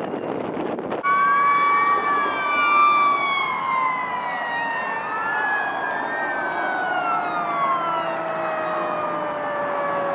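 Fire engine sirens wailing on an emergency response: several siren tones glide slowly up and down together, starting suddenly about a second in after a moment of wind and traffic noise, with one long falling tone through the second half.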